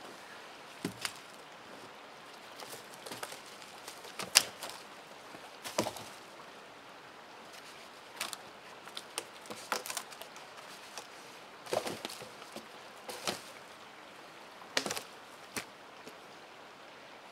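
Dry dead wooden poles and sticks knocking and clattering against each other as they are set into a shelter wall: scattered sharp knocks and cracks, the loudest about four seconds in.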